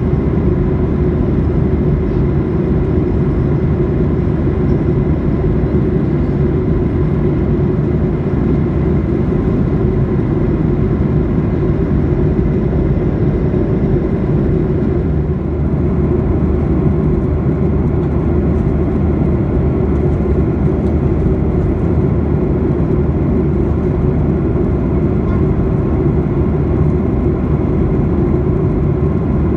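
Steady cabin noise of a Boeing 737-800 in cruise, heard inside the cabin: the low rumble of its CFM56-7B engines and the rush of air along the fuselage, with faint steady tones riding over it.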